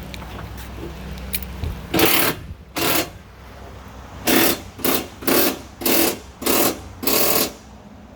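Pneumatic impact wrench fired in eight short bursts, tightening the car's front subframe and suspension bolts.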